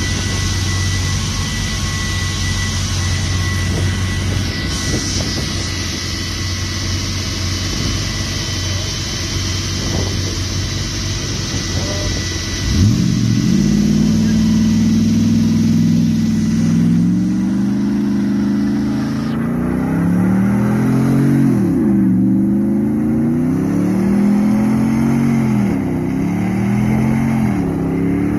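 RAM 2500's 6.4-litre HEMI V8 in a burnout. It runs steadily at first, then about halfway through the revs climb sharply and are held high, dipping and climbing back a few times near the end.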